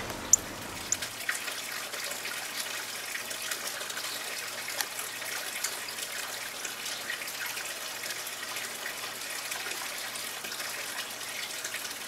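Steady trickling of running water, with a few short high-pitched chirps in the first second.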